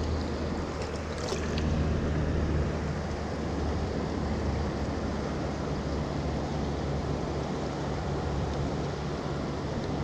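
Steady rush of flowing river water and wind, with a low rumble of wind on the microphone.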